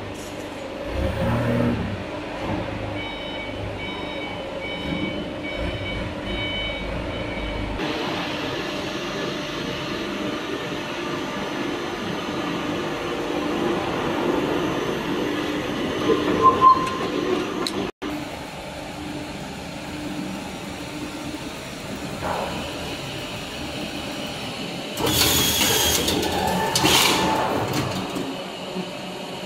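AAC block production line machinery running: a chain conveyor driven by a geared motor carries a concrete cake on its cart into the wire cutting machine, a steady mechanical running noise. A louder, noisier stretch lasts about two seconds near the end.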